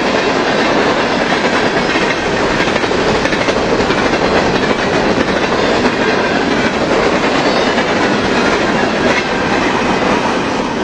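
Freight train of covered hopper cars passing close by at speed, a loud, steady rumble and rattle of wheels and cars on the rails.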